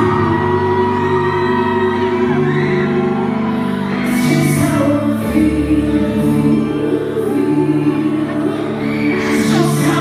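A woman singing a slow pop cover into an amplified microphone over sustained backing chords that change every second or two.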